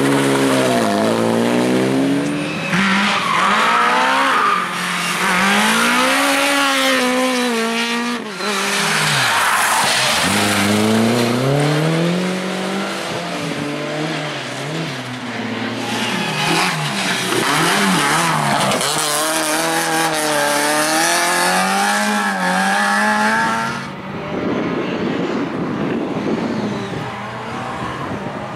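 Rally cars driven flat out, engines revving high and dropping back through gear changes over and over, with tyres squealing and skidding. The sound changes abruptly about 8 seconds in and again near the end.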